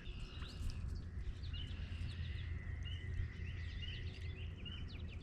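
Outdoor pond-side ambience: birds chirping repeatedly in short, quick calls over a thin steady trill and a low rumble.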